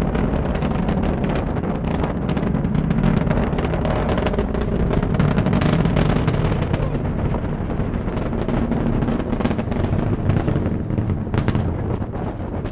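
SpaceX Falcon 9 rocket's first-stage engines in flight: a loud, steady low rumble thick with sharp crackling.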